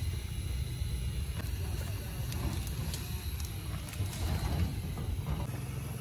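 Portable butane camping stove burning steadily under a pot at a rolling boil: a steady low rumble, with a few light clicks.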